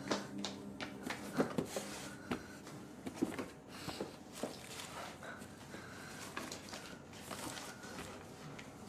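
A person moving about a small room and handling a box and its contents: a scattered series of light knocks, clicks and rustles.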